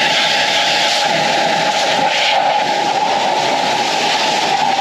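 EGO Power+ HPW3200 cordless pressure washer running on turbo mode with the 40-degree tip, its jet spraying a car wheel and the concrete below: a loud, steady hiss of spray over a steady whine from the washer.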